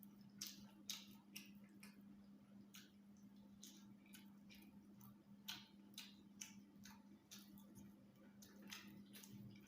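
Quiet close-up eating sounds: irregular soft clicks and smacks, about two a second, of chewing and of eating rice and ayamase stew by hand, over a faint steady low hum.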